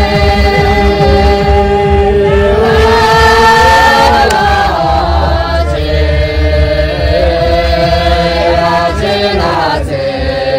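A group of men's and women's voices chanting a slow traditional song in unison, holding long notes that shift up and down in pitch every few seconds.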